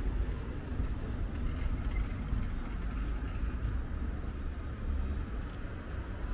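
Cars driving past on a cobblestone street, their tyres giving a steady low rumble over the stones.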